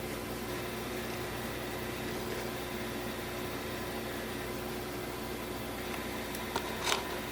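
Steady hum and hiss of room background noise, like an appliance or fan running, with a couple of faint short rustles near the end.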